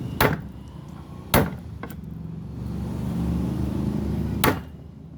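Hammer blows on a chisel cutting into solid wood. There are four sharp strikes: the loudest comes about a second and a half in and the last near the end, over a low steady rumble.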